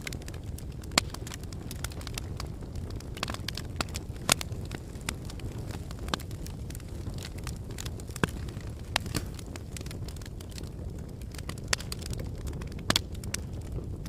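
Wood fire in a fire pit crackling: irregular sharp pops and snaps, several a second, a few much louder than the rest, over a steady low rumble.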